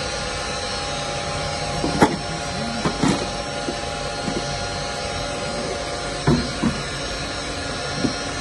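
Zumex orange juicer's plastic parts being handled: a few sharp plastic knocks and clacks, the loudest about two seconds in, over a steady machine hum.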